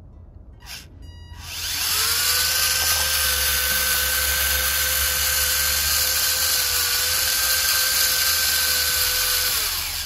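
Battery-powered electric motor of a homemade remote-control toy tractor whining under load as it pulls a weighted sled. The whine rises about a second and a half in, holds steady, then sinks in pitch and stops near the end as the tractor comes to a halt.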